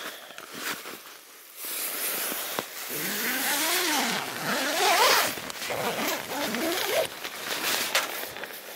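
Zipper on a Vango Tempest 300 tent's flysheet door being drawn open in several strokes, its rasp rising and falling in pitch with the pull, starting about a second and a half in.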